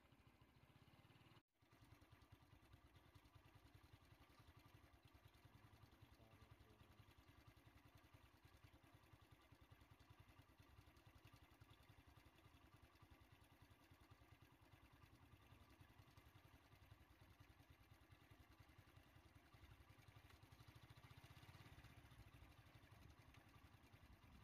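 Near silence: a faint steady low background noise, broken by a brief total dropout about a second and a half in.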